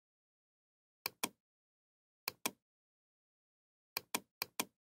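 Computer mouse button clicking in quick pairs, like double-clicks: one pair about a second in, another about two seconds in, and two pairs in quick succession near the end.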